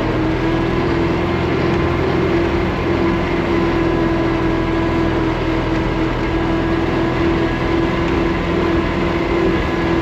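1972 Allis Chalmers M65 road grader's gasoline engine running steadily, its hard-starting choke problem fixed.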